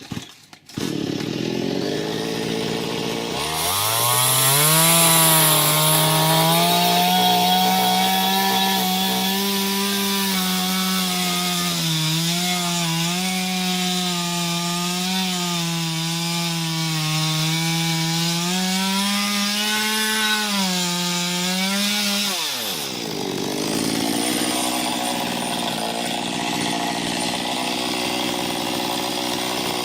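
Small chainsaw with a 15-inch bar cutting into an ash trunk. The engine comes in low, revs up about three seconds in and holds high revs, its pitch wavering under the load of the cut. About 22 seconds in it drops back to a low idle.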